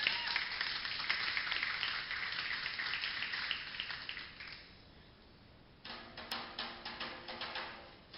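Audience applauding, a dense clatter of clapping that dies away after about four seconds. About six seconds in, two djembe drums start up with sharp hand strikes.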